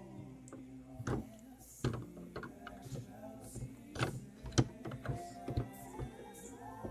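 Plastic LEGO pieces clicking and knocking as the model's roof section is handled and pressed into place: a string of sharp clicks, the loudest about four and a half seconds in. Holiday music plays quietly underneath.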